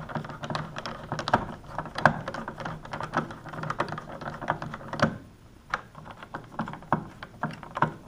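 Many irregular light clicks and taps as hands handle and position wall switches in a three-gang box, plastic and metal knocking together.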